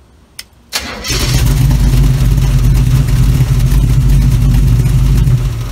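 Small-block Chevy 350 V8 started from the newly wired ignition switch: a click, a brief crank about a second in, then the engine catches and runs loud and steady for about four and a half seconds before it stops near the end.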